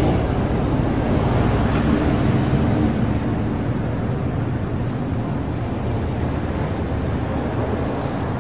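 Steady road noise inside a moving car's cabin: tyre rumble and engine hum while driving along a highway.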